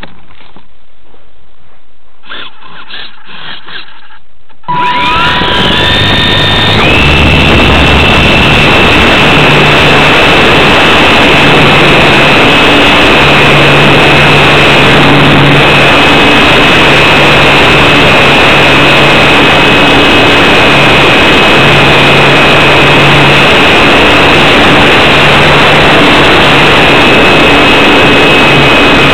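Electric motor and propeller of a Hobbyzone Super Cub RC plane, heard close up from a camera on the plane. About five seconds in the motor starts with a whine rising in pitch, then holds a steady high whine over a rushing noise through the takeoff and climb.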